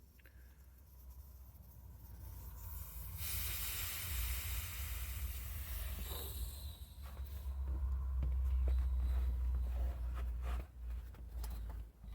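Air hissing out of a bicycle inner tube's valve as the tube is let down, starting abruptly a few seconds in and fading away after about four seconds. It is followed by low rubbing and handling noise from the tube, with a few clicks near the end.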